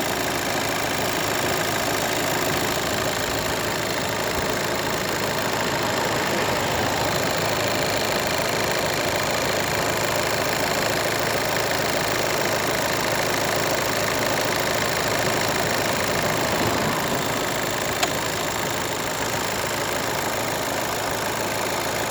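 VW Golf 7's 1.6 TDI four-cylinder diesel engine idling steadily with a knocking sound that the owner traces to the timing belt. A single sharp click stands out near the end.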